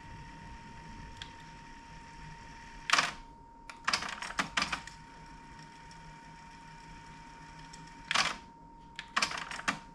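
Sony TC-WE425 dual cassette deck, freshly re-belted and under test: its transport mechanism and buttons clunk and click in short bursts about three, four, eight and nine seconds in, over a steady high tone.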